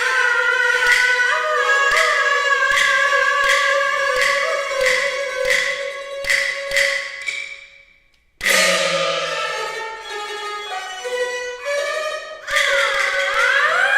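Peking opera accompaniment: jinghu and jingerhu bowing a quick melody over steady clapper-like beats, fading out about eight seconds in. A loud percussion strike follows, then ringing metal tones that bend up and down in pitch near the end.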